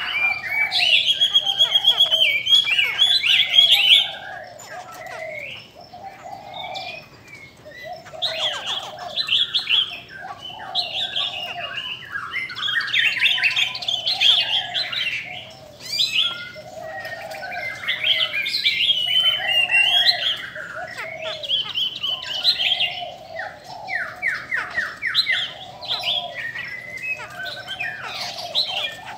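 Caged laughingthrushes (khướu) singing loud, varied whistled phrases with hardly a pause. A little before the end comes a quick run of repeated notes.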